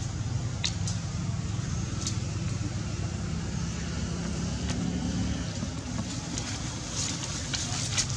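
Steady low rumble of a motor vehicle engine running close by, with a few brief high chirps scattered over it, more of them near the end.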